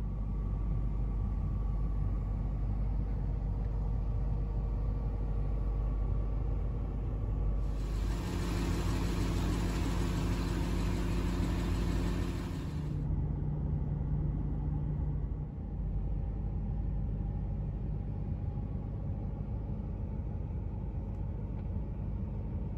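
Steady low rumble of an idling vehicle. About eight seconds in, an even hiss joins it for some five seconds, then a short steady hum follows.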